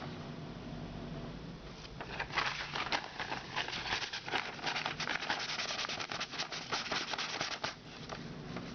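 Sandpaper scraping and crackling in quick irregular strokes, beginning about two seconds in and easing off near the end, over a low steady hum.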